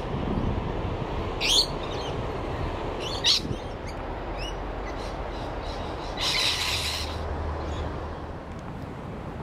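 Rainbow lorikeets calling: two short, sharp screeches about one and a half and three seconds in, a few fainter chirps, and a longer harsh screech about six seconds in, over a steady low background rumble.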